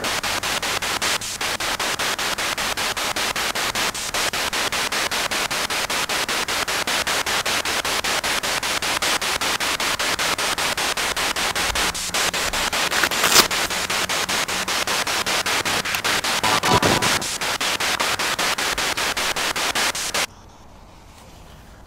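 Wonderbox spirit box sounding loud white-noise static through a small amplifier speaker, with a fast, even chopping running through the hiss and a couple of louder crackles along the way. About twenty seconds in the static cuts off abruptly.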